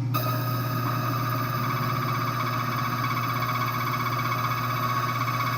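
Key-milling machine's slotting wheel cutting a groove into a high-security key blank: a steady high whine that starts suddenly as the cutter bites, over the continuous hum of the machine's motor.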